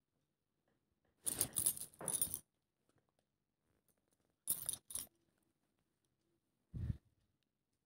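Small metallic clinking and jingling in three short bursts, the last ending in a dull low knock, with silence between.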